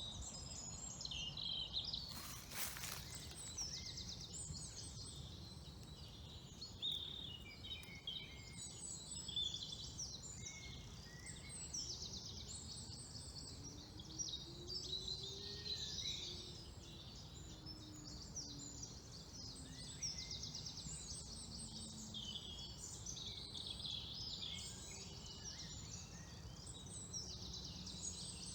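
Many songbirds singing at once, a dense chorus of overlapping chirps and trills, over a steady low outdoor rumble.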